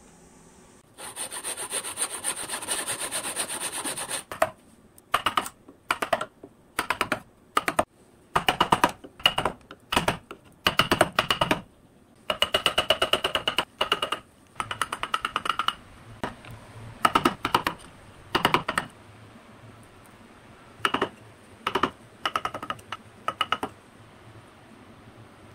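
Hand tool scraping and rubbing on a carved cypress wood block: about three seconds of continuous rapid rubbing starting about a second in, then a long series of short, separate strokes, each under a second.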